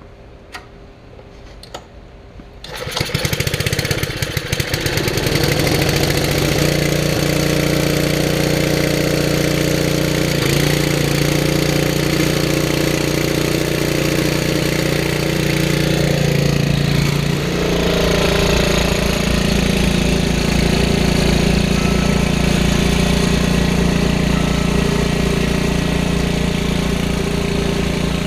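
1976 Ariens Sno-Throw snowblower's five-horsepower Tecumseh Snow King engine starting about three seconds in, after a few faint clicks. It then runs steadily, and its note shifts around two-thirds of the way through.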